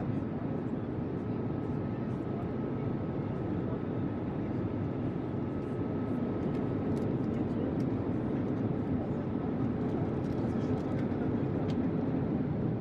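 Steady cabin noise of a Boeing 787-8 airliner in cruise: an even rumble of engines and rushing air, with a faint steady whine that fades out near the end.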